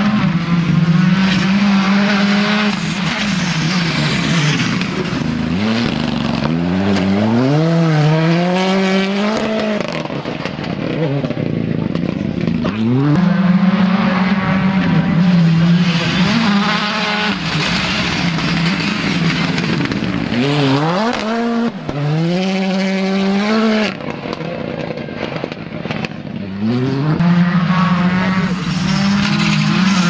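R5 rally cars' turbocharged four-cylinder engines running hard on a gravel stage. The engine note is held high, then drops several times and climbs again as the cars brake and accelerate through the gears.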